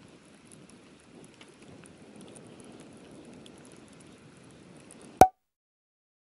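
Light rain pattering on the water and boat over a low steady rush. About five seconds in comes one sharp, loud hit with a short ringing tone, and the sound then cuts to dead silence.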